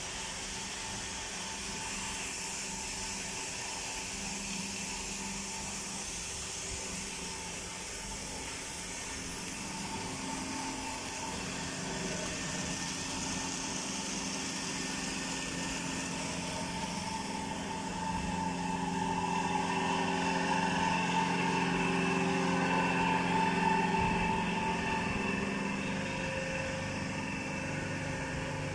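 Effluent treatment plant machinery running with a steady hum and several held tones under a hiss, growing louder about two-thirds of the way through.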